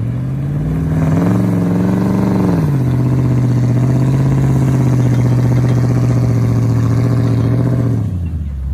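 Toyota Tundra pickup's engine revving under load while pulling a stuck vehicle on a recovery strap in snow. The revs climb about a second in, drop back a couple of seconds later, hold steady for several seconds, then ease off near the end.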